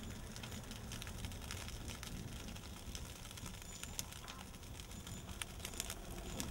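Dry grass and brush burning, crackling with irregular sharp pops over a low rumble.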